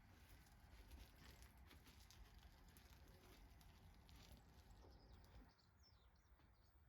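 Near silence: faint scattered ticks and clicks, then, near the end, a few faint high chirps.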